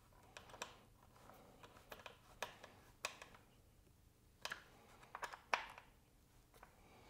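Faint, irregular light clicks and short scrapes of a hand hex driver turning small flanged button-head bolts that fasten the brake-line and ABS-sensor-line clips to a motorcycle front fender.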